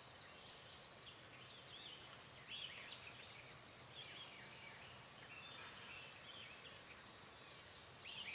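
Faint outdoor ambience: a steady high-pitched insect trill, with scattered short bird chirps.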